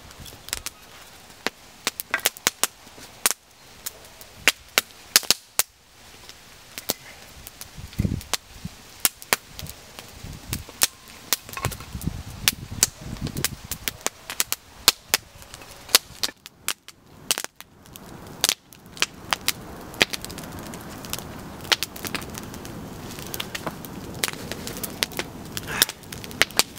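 Campfire of pine feather sticks and kindling crackling as it catches, with frequent sharp, irregular pops.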